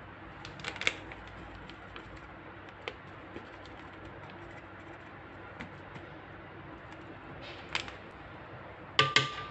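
Scattered short clicks and rustles of a plastic bag of cornstarch and a metal spoon as starch is scooped out and tipped into a pot of water, over a faint steady background; a louder, sharper sound comes near the end.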